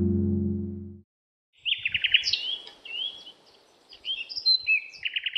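Music fading out in the first second, then a small bird calling in quick chattering runs of high chirps and short whistled slurs, with a brief pause midway.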